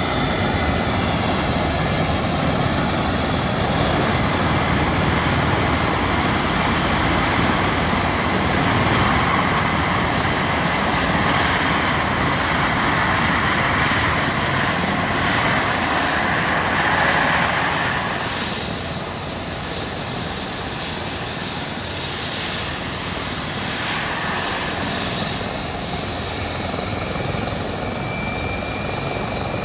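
Eurocopter EC135 helicopter's twin turbine engines starting up and running, with the main rotor turning. A faint high whine climbs steadily in pitch over the first half as the turbines spool up, above a steady loud rush of engine and rotor noise.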